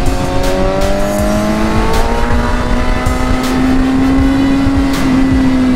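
Motorcycle engine under way, its note rising slowly and steadily for several seconds and levelling off near the end, with wind rumble on the microphone.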